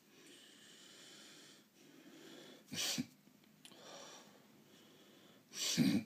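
A person sniffling through the nose again and again: a sharp double sniff about three seconds in and another loud sniff near the end, with quieter snuffling breaths in between.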